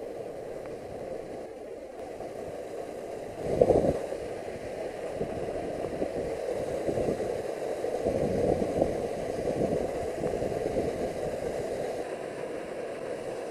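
Steady rush of canyon stream water, with a single loud knock about three and a half seconds in.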